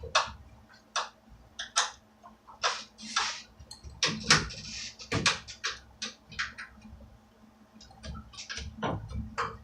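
Irregular sharp clicks and knocks of hand tools working a brace bolt loose on an old wooden workbench, some clicks coming in quick runs, with a brief scrape about four seconds in.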